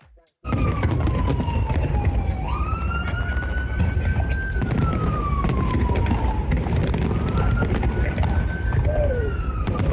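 Emergency-vehicle siren wailing in slow rises and falls, about two long cycles, over a steady low rumble of crowd and city noise. It cuts in after a brief dropout at the very start.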